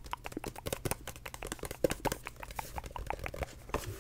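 Fingernails tapping on a book's textured paper cover close to the microphone: quick, irregular taps, several a second.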